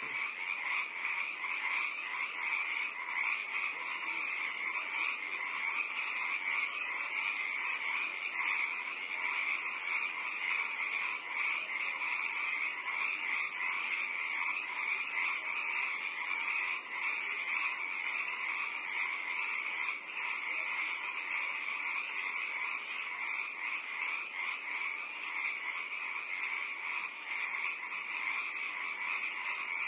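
A steady chorus of calling animals: a dense, even trilling that keeps on without a break.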